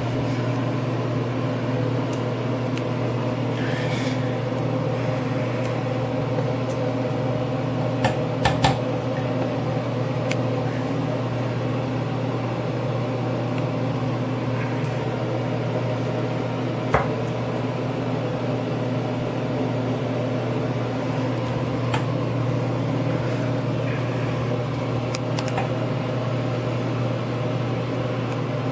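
Steady mechanical hum of a running fan motor, with a few sharp clicks of metal pliers picking at a small animal skull, the loudest a little past halfway.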